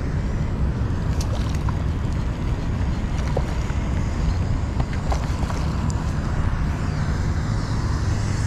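Wind buffeting the microphone, a steady low rumble over the rush of the river, with a few faint clicks.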